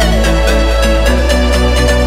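Electronic dance music with a steady beat and a sustained bass line.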